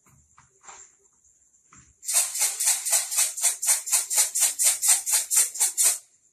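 A homemade sound box, a lidded bottle with a filling inside, shaken quickly and rattling at about five or six shakes a second for about four seconds, starting about two seconds in. This is the bottle matched as a soft sound. A few light knocks come before the shaking starts.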